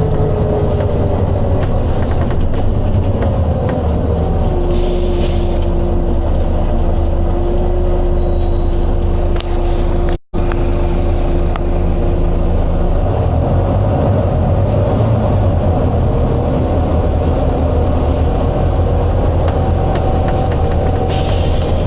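Volvo B9TL double-decker bus's diesel engine running with a steady low hum and a whine that falls and then holds until about halfway. Short air hisses from the bus's air system come near the start, about four seconds in and near the end.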